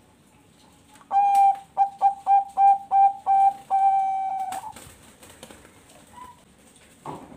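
Zebra dove (Bangkok perkutut) singing one phrase of clear, ringing coos. It opens with a longer note, runs through about six quick short notes, and ends on a long drawn-out note, lasting from about a second in to nearly five seconds in. A single soft knock comes near the end.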